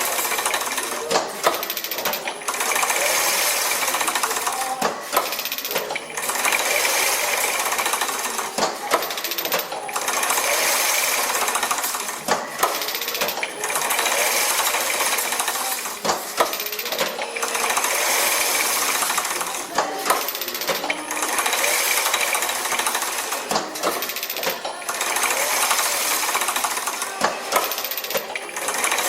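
Automatic chain-link mesh machine running through its work cycle: a long noisy stretch, then a few sharp knocks, repeating about every three and a half seconds.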